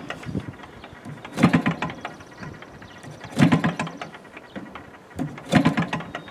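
Sachs Dolmar 3.7 (61cc) two-stroke gasoline engine on a one-third-scale model airplane, running rough at low speed and picking up in short surges about every two seconds. It is not running happily with the cowling on; the owner suspects a sloppy carburetor throttle cable.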